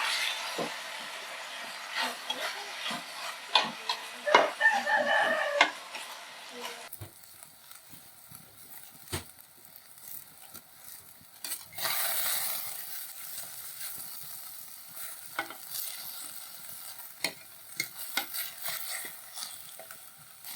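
Chopped meat and onion frying in oil in a pot, sizzling steadily, with a spoon stirring and scraping against the pot in many small clicks. The sizzle flares up again about twelve seconds in.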